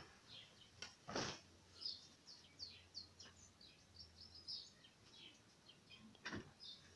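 Faint small-bird chirping: a quick series of short, high chirps that slide downward, over a quiet room. A brief louder noise comes about a second in and another near the end.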